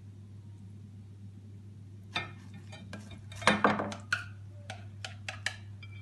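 Kitchen tongs clicking and knocking against a bowl of chicken drumsticks and being set down. A cluster of sharp clicks starts about two seconds in and is loudest about three and a half seconds in, followed by a few lighter taps. A steady low hum runs underneath.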